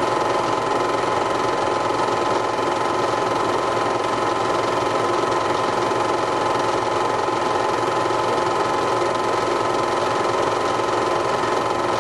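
A small machine running steadily: an even whirring with a fast, fine rattle and a few steady tones.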